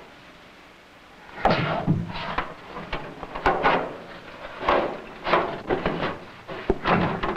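Asian golden cat hissing and spitting in repeated sharp bursts, starting about a second and a half in, with knocks and thuds of a boxing glove and paws against a wire cage.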